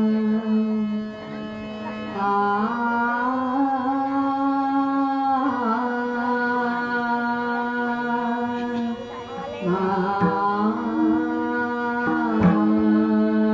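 Devotional bhajan music without words: a melody of long held notes moving in steps, with a few drum strokes near the end.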